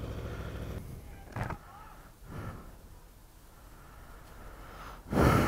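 Aprilia RSV4RR's V4 engine idling low, dying away within the first second, then a single sharp click. Near the end comes a short, loud rush of noise lasting under a second.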